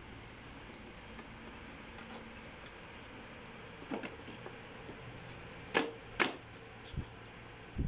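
Metal tubes of a butterfly chair frame being handled and fitted together: a light click about four seconds in, then two sharp metallic clicks about half a second apart, followed by a couple of dull thumps near the end.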